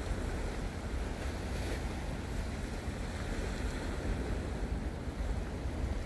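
Steady wind noise on the microphone, with sea waves washing against a rocky shore.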